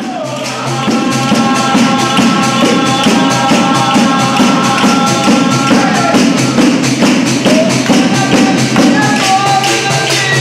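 Lively folk dance music driven by a tambourine's fast, even jingles, with sustained melody notes held above the rhythm.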